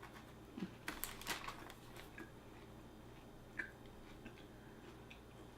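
Faint close-up chewing of a sandwich, with a cluster of small crunches and mouth clicks about a second in and one more click later.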